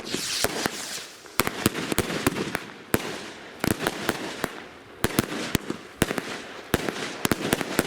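Consumer firework cake (battery) firing: a rapid, irregular string of sharp bangs, several a second, with a crackling hiss between them.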